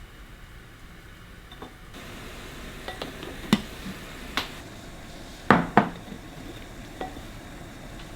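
Kitchenware being handled: about half a dozen light knocks and clinks of dishes or containers being set down, two of them in quick succession near the middle, over a faint steady hiss.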